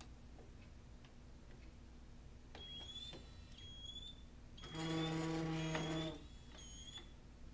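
BOT-3000 tribometer's drive motor running as the self-propelled tester travels across a wet ceramic tile in a dynamic coefficient of friction test. Short high whines come first, then a loud steady buzzing hum lasts about a second and a half, and one more brief rising whine follows near the end.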